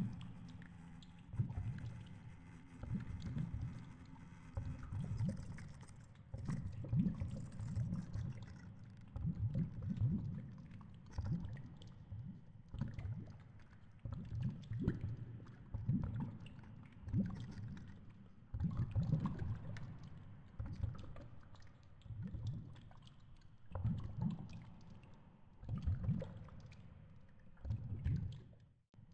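Underwater water noise: muffled low surges of moving water every second or two, with faint scattered clicks.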